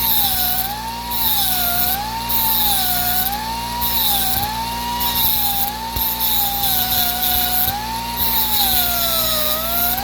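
Die grinder whining as it sharpens the teeth of a hedge trimmer blade. Its pitch dips and recovers about once a second as it bears on each tooth, with a grinding hiss that comes and goes.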